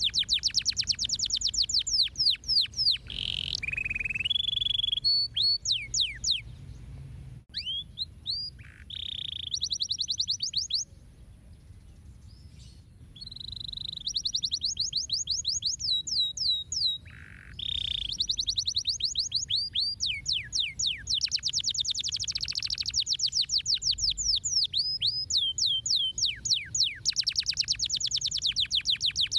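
Domestic canary singing: long, rapid trills of repeated downward-sweeping high notes, phrase after phrase, with a pause of a few seconds about halfway through.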